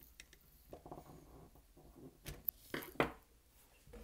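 Small clicks and knocks of a TI-83 Plus calculator's plastic parts and small tools being handled during reassembly, with light rustling about a second in and a few sharp clicks in the second half, the loudest near the end.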